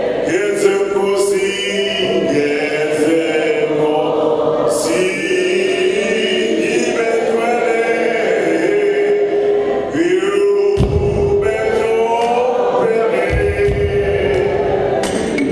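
A man sings an isiZulu gospel hymn into a microphone, with other voices joining him in long held notes. A low rumble comes in about eleven seconds in.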